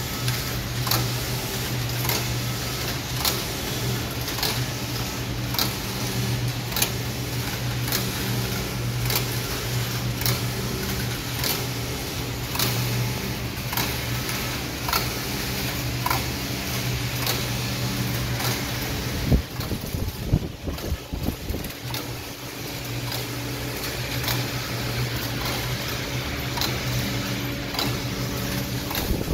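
Computerized flat knitting machines running: a steady low mechanical hum with sharp clicks about once a second as the carriages work back and forth. A few louder knocks come about two-thirds of the way through, while the hum briefly dips.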